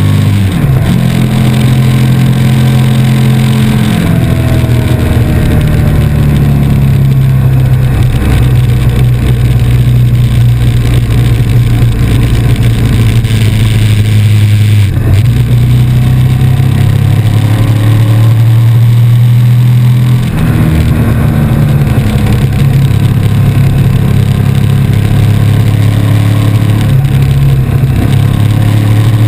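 KTM RC8's V-twin engine pulling the bike along at road speed, heard from on board, with wind rush over it. The engine note holds steady for long stretches and changes pitch a few times as the throttle and gears change.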